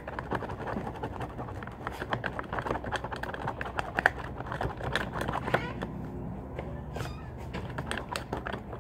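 Clear plastic bag holding watery homemade slime being squeezed and kneaded by hand: a run of rapid, irregular small clicks and crinkles. The slime is still watery and has not set into a slime.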